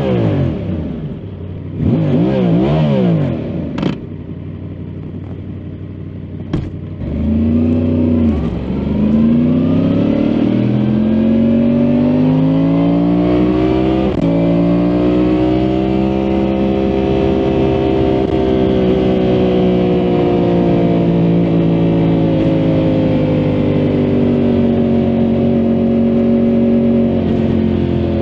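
2023 Yamaha MT-10 SP's crossplane inline-four engine revving in quick blips, then running at a lower note until a sharp click about six and a half seconds in. From about seven seconds it pulls up into one long, steady note that climbs for several seconds and then slowly eases off.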